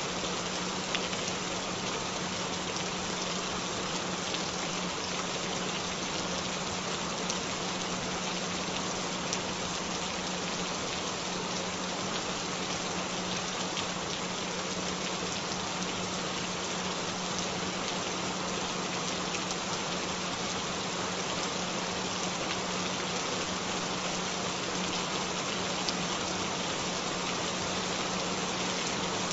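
Steady rain with scattered faint drop ticks, mixed with a continuous low tone that never changes: a synthesized frequency tone laid under the rain for headphone listening.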